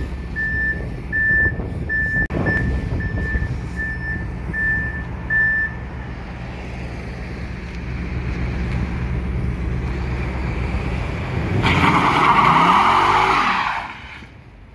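Ford Mustang GT's V8 running with a steady low rumble, while a beep repeats about twice a second for the first six seconds. About twelve seconds in the engine revs and the rear tyres screech loudly in a short burnout for about two seconds.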